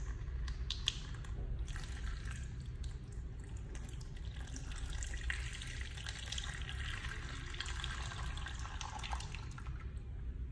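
Water pouring in a thin stream from a plastic bottle and splashing into a shallow plastic tub of water. The stream stops near the end as the bottle is lifted.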